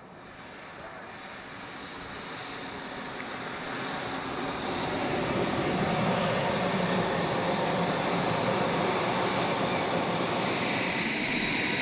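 Jet turbine of a radio-control model aircraft: a high whine over a rushing noise that grows steadily louder. The whine rises in pitch about halfway through, and the sound gets louder again near the end.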